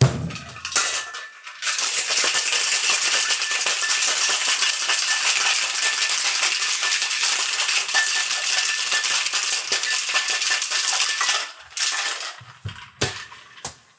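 Ice cubes rattling hard and fast inside a stainless steel two-piece tin shaker for about ten seconds, chilling a shaken drink. A few metal knocks just before, as the tins are pressed together, and a few more near the end.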